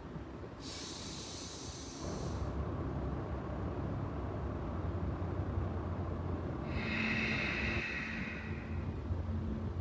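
A person breathing deeply during a stretch: two long, hissing breaths about six seconds apart, over a low rumble.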